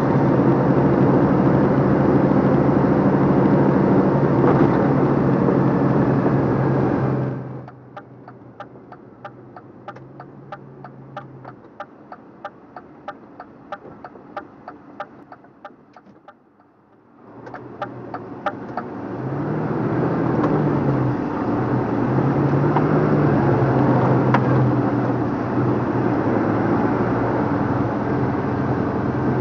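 Cab interior sound of a DAF LF55 lorry's diesel engine running under way. For about ten seconds in the middle the engine drops almost silent, leaving a fast, regular ticking, then comes back in with its pitch rising and falling as the lorry pulls away through the gears.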